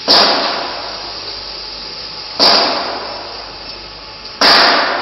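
Three sudden, loud hissing bursts about two seconds apart, each strongest at the start and fading over about half a second.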